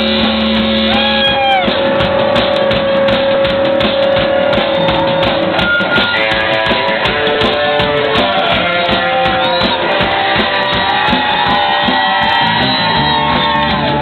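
Live rock band playing, with electric guitar and bass over a driving drum kit; held guitar notes, some bent, ring over steady drumming.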